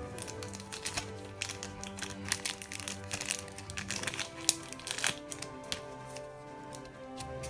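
Background music with steady held notes, over close crinkling of plastic packaging and scattered small clicks as a camera battery is handled and unwrapped.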